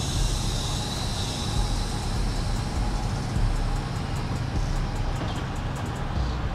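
Steady low rumble of a vehicle running, with a few faint light ticks in the second half.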